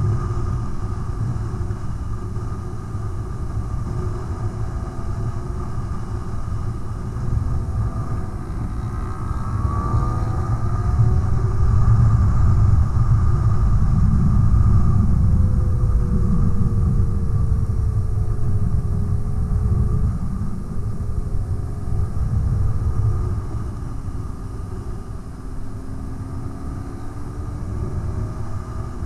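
Motorcycle riding: a steady low rumble of engine and wind on the bike's camera microphone. About nine seconds in the engine note climbs, grows louder, then glides back down over the next several seconds.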